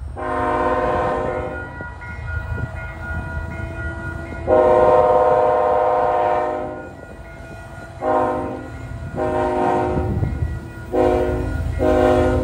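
Diesel locomotive's air horn blowing a series of blasts as a BNSF-led grain train approaches: two long blasts, then four shorter ones, over the low rumble of the train.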